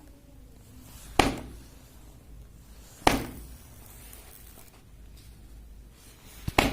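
Three sharp plastic clacks, about two seconds apart, as a laptop charger's three-pin plug is pushed into a wall socket and worked into place.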